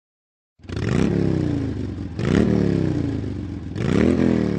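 Motorcycle engine revved three times, about a second and a half apart: each throttle blip climbs quickly in pitch and then winds down slowly.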